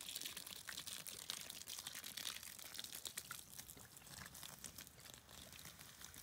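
Dense, irregular crackling and crunching, many small clicks close together, starting abruptly.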